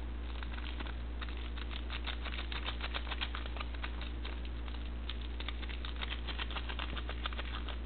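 Instant ramen seasoning packet crinkling as it is shaken out, with many rapid small crackles and patters while the powder goes into the bowl. A steady low hum runs underneath.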